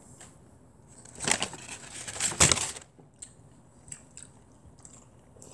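Brown paper takeout bag rustling and crinkling as it is handled, two short crackly bursts a second or so apart, followed by a few faint clicks.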